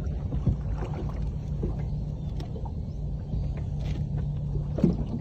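A small boat's engine running steadily at idle, a low continuous hum, with a few short knocks over it; the loudest knock comes near the end.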